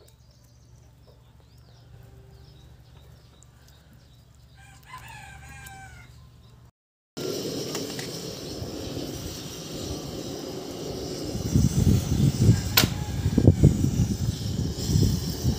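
A rooster crows once in the background about five seconds in. After a sudden cut, a louder steady rushing noise takes over, with low rumbling gusts that grow stronger about halfway through and one sharp click.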